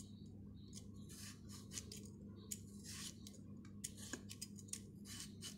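Handheld vegetable peeler scraping the skin off a raw potato in a series of short, faint strokes, roughly two a second.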